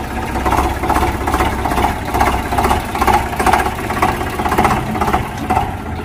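Tractor engine sound effect, running at a steady chugging idle with a regular beat of about three pulses a second.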